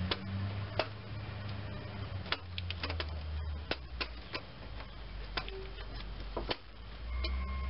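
Irregular clicks and knocks as a car starter motor is hoisted up into place from underneath the engine, knocking against the engine and its wiring. A low hum runs behind it, dropping out midway and returning near the end.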